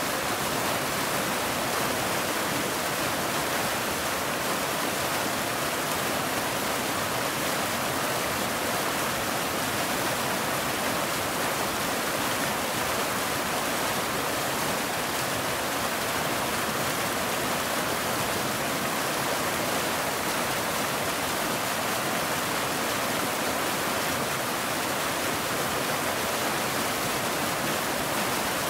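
Waterfall: falling water rushing in a steady, even hiss, with no breaks or changes.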